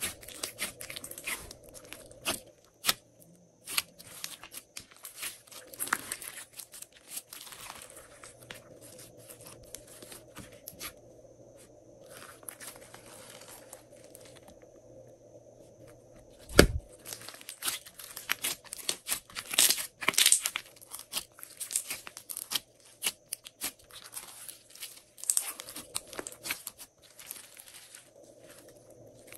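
Glossy slime being squished and pressed by hand, giving a rapid, irregular run of sticky pops, clicks and crackles. One heavier thump comes a little past halfway.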